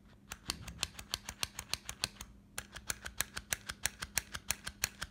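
Rapid, even metallic clicking from a restored Astra 4000 Falcon pistol being worked by hand, about seven sharp clicks a second. The clicks come in two runs with a short break a little past two seconds in.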